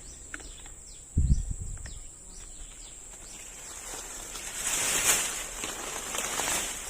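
Outdoor ambience: a steady high-pitched insect drone with short falling bird chirps, a brief low thump about a second in, and a swell of hiss-like noise in the second half.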